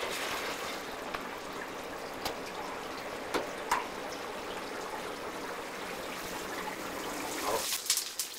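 Steady rushing hiss of a commercial bakery kitchen, with a few light knocks from oven and tray handling and a burst of clatter near the end.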